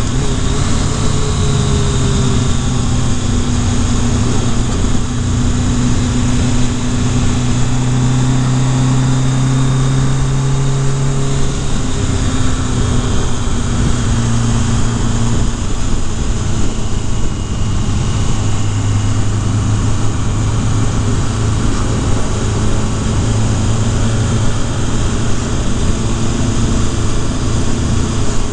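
Kawasaki Concours ZG1000 motorcycle's inline-four engine running while riding along, with heavy wind rush. The engine note steps lower about twelve seconds in and again a few seconds later.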